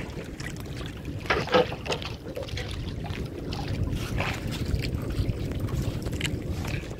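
Steady wind and water noise on a small fishing boat at sea, with a few short knocks; the loudest comes about a second and a half in.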